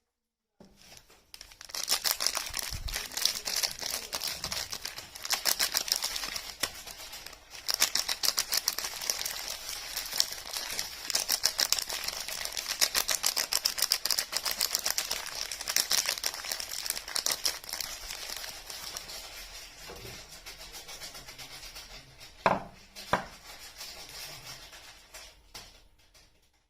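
Soap packaging being unwrapped by hand: dense crinkling and tearing of the wrapper, with two sharp knocks close together near the end.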